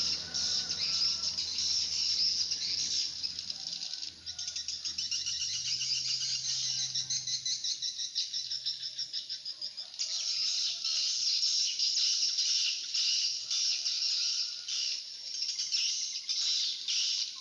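A dense chorus of rapid, high-pitched chirping trills from insects, running continuously with a brief lull about eight seconds in. A low steady hum sits underneath during the first several seconds and then fades.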